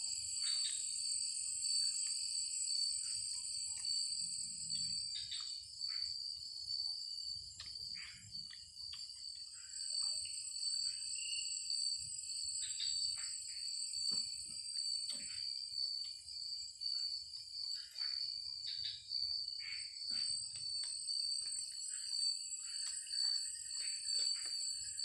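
Crickets and other insects trilling steadily at a high pitch, with many short scattered chirps and clicks over it.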